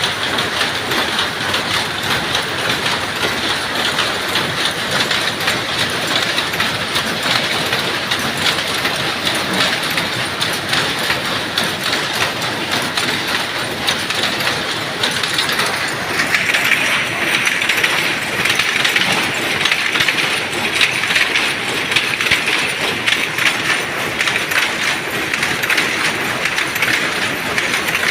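Dobby power looms weaving terry towel, running with a fast, continuous mechanical clatter. About halfway through the clatter turns brighter and a little louder.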